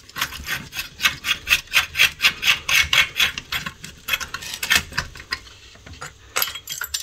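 Socket wrench turning off the half-inch nut that holds a can capacitor to a steel radio chassis: a run of quick metallic clicks, about four a second, then a few scattered clicks and knocks near the end as the capacitor comes free.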